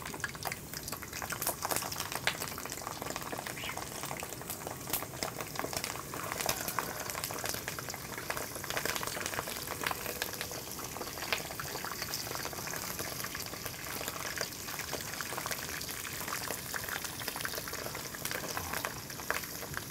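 Pork intestines deep-frying in hot oil in a pan: a steady sizzle scattered with frequent sharp crackling pops.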